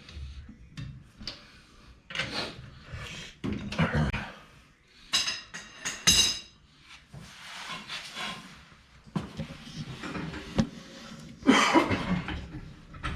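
Scattered metal clanks and knocks of tools and car parts being handled on a garage floor, with a few ringing metallic clinks about five to six seconds in.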